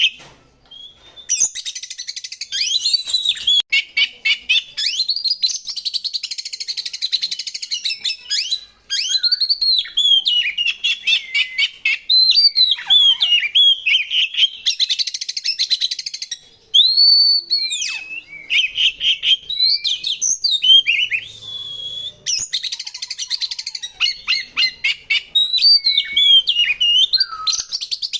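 Oriental magpie-robin (kacer) singing loudly and almost without pause. Its varied song mixes clear whistled notes that swoop up and down with long, rapid, harsh rattling trills.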